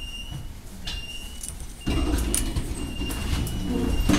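Tram standing at a stop, heard from on board: a low rumble with a thin high tone coming and going, then about two seconds in a louder mechanical running noise starts up and carries on.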